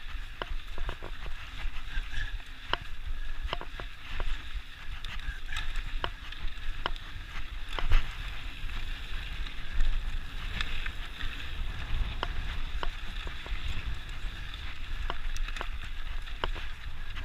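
Mountain bike rolling along a dirt singletrack: tyres crunching over gravel, with frequent clicks and rattles from the bike and a low wind rumble. A couple of harder knocks come about eight and ten seconds in.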